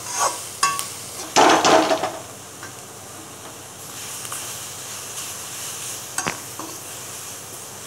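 A metal spatula stirring and scraping grated beetroot and onion around a metal pan, with a loud scrape about one and a half seconds in and a couple of sharp knocks of the spatula on the pan. Faint sizzling underneath.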